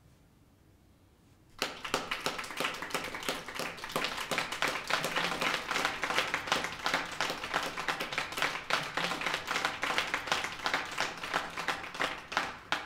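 A small group of people clapping, starting abruptly about one and a half seconds in and stopping near the end.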